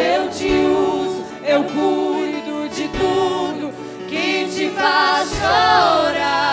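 Gospel worship song sung by women's voices over held accompaniment tones.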